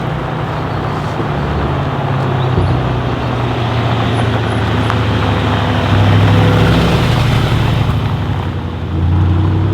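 Mercedes G63 AMG's twin-turbo V8 through an Akrapovic exhaust, running at low revs with a deep, steady exhaust note that swells briefly about six seconds in and again near the end.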